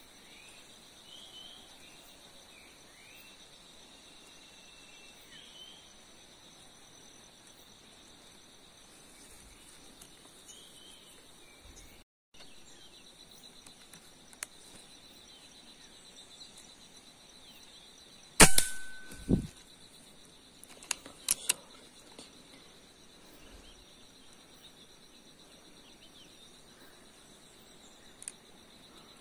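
Steady buzzing of forest insects, with a few faint bird chirps. Then a single sharp shot from an air rifle fired at a squirrel in the trees, the loudest sound, followed about three seconds later by a few quick sharp clicks.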